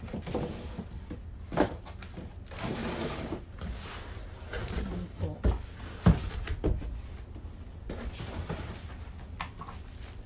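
Clear plastic bag rustling around the body of a new electric fan as it is lifted and handled, with a few hard knocks and thumps. The loudest knock comes about six seconds in.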